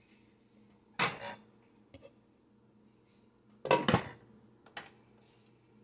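Cooking pot and kitchenware clattering as the pot is set on the stove: a clank about a second in, a louder rattle of several clanks near the middle, and a small knock shortly after.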